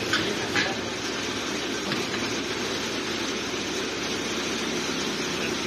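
Kaishan KG420 down-the-hole drill rig running steadily, its engine and hydraulics moving the drill boom as the control levers are worked, with a couple of sharp clicks just after the start.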